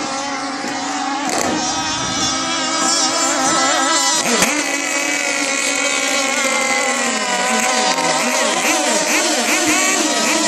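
Racing powerboat engine running at high revs, growing louder over the first few seconds and then staying loud, its pitch wavering slightly.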